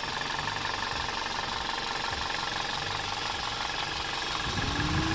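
Toyota Corolla 1.6 VVT-i four-cylinder engine at 222,457 km, idling with a steady rhythmic pulsing and an unexplained strange noise. Near the end a tone rises in pitch and then holds steady.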